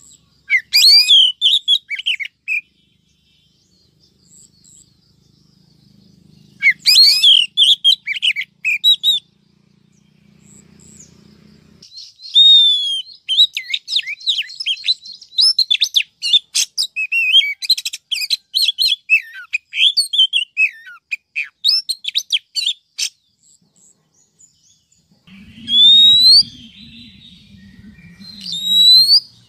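Female Oriental magpie-robin calling: bursts of high, quick chirps and whistles about a second in and again near seven seconds, a long run of varied chirps from about twelve to twenty-three seconds, and rising whistles over a low hum near the end.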